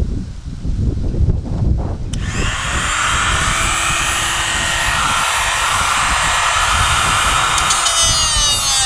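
A handheld power tool starts about two seconds in and runs steadily with a high whine, cutting into an electronic component's casing to open it up; its pitch begins to drop right at the end as it bears into the work. Before it starts there is low rumbling handling noise.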